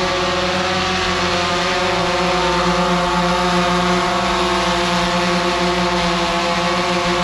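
DJI Phantom 3 Pro quadcopter's motors and propellers buzzing steadily as it hovers in place just after takeoff, with a small shift in pitch about two seconds in.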